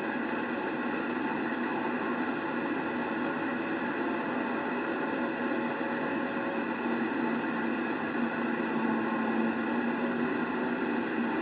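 Steady static hiss from a Yaesu HF transceiver's speaker, tuned to 27.005 MHz (CB channel 4) with no clear signal on the channel, a few faint steady tones running through the noise.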